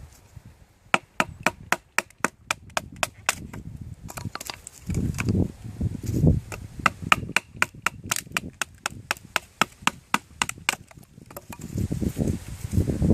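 Bushcraft knife chopping into a wooden stick: quick runs of sharp strikes, several a second, with a short break about four seconds in, stopping near the end.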